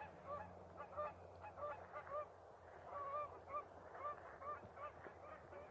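Geese honking: faint, short repeated calls, roughly two a second.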